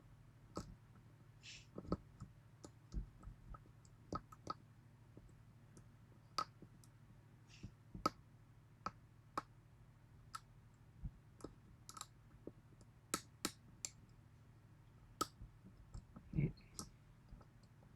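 Lock pick and tension wrench working the pins of a 6-pin Yale pin-tumbler lock with spool drivers: faint, irregular metallic clicks and ticks as the pins are lifted and set, a few dozen over the stretch with no steady rhythm.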